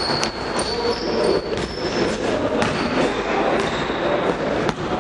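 Basketball game play on a wooden gym floor: the ball bouncing in a series of sharp knocks, with short high sneaker squeaks, all echoing in a large hall.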